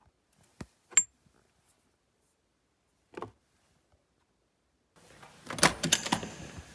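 A few sharp clicks and taps with silence between them, then from about five seconds in a short run of clattering knocks over rising background hiss, like objects being handled.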